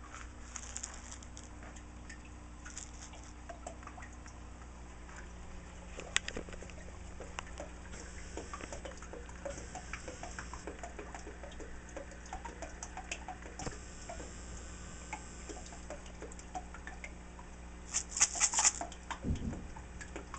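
Small splashes and water patter from aquatic turtles paddling at the surface of an aquarium as they beg for food, over a steady low hum. A louder cluster of splashes comes near the end.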